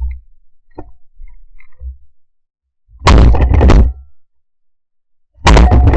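Two shotgun shots from a Browning A5 semi-automatic, heard through a camera mounted on the gun: one about three seconds in and another near the end, both loud enough to clip. A few faint knocks come in the first two seconds.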